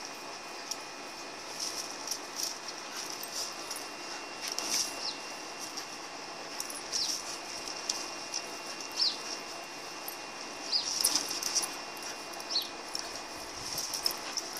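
A Siberian husky and a Rottweiler puppy play-fighting: scuffling and mouthing, with scattered clicks and the jingle of a metal chain. Several short, high squeaks fall in pitch.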